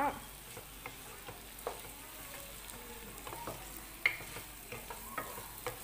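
Marinated paneer and capsicum frying in oil and ghee in a nonstick pan, a faint steady sizzle, stirred with a wooden spatula that gives short scrapes and taps now and then.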